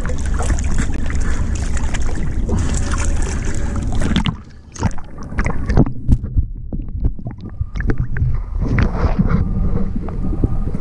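Water splashing and wind on the microphone at the surface; about four seconds in the sound drops suddenly and turns muffled as the microphone goes underwater, with sharp clicks and knocks. Near the end a low underwater rumble with scattered clicks.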